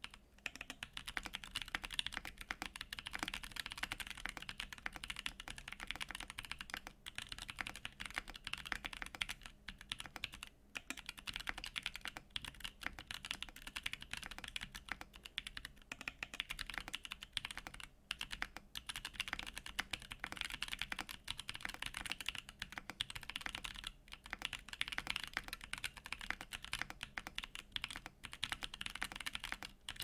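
Fast continuous typing on an LZ Physix custom mechanical keyboard with an FR4 plate, lubed Kiwi/Boba switches with UHMWPE stems, and lubed Durock stabilizers: a dense stream of keystrokes with a few brief pauses.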